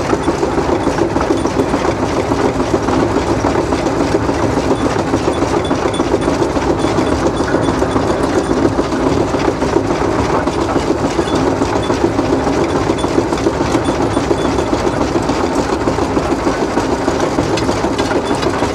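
Steam traction engine running under way, heard close up from its platform: a steady, even mechanical clatter with no break.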